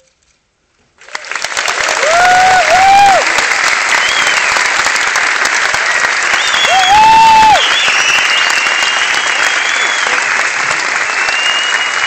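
Audience applause breaking out about a second in after a short silence at the end of a live string-ensemble performance, with loud whistles from the crowd twice and fainter ones later.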